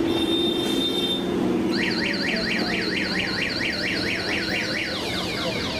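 An electronic warning siren starts about two seconds in, yelping rapidly up and down about four times a second over a steady high tone, and changes its pattern near the end. Beneath it runs the low drone of the departing WDM3D ALCO diesel train.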